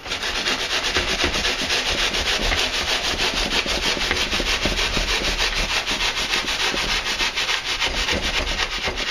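Stanley SharpTooth hand saw cutting down through a block of packing foam, its teeth rasping in fast, even back-and-forth strokes.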